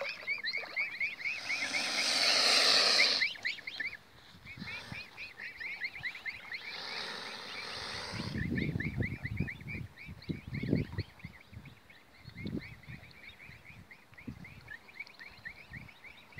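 Birds calling in a rapid run of short high chirps, with stretches of rushing noise and low rumbling bursts.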